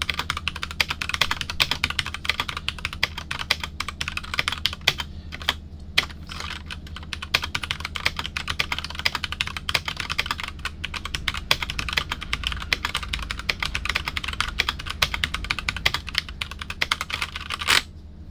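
Keychron K6 mechanical keyboard with tactile brown switches being typed on quickly with two fingers: a dense, uneven run of key clacks that stops near the end, leaving a few single clicks.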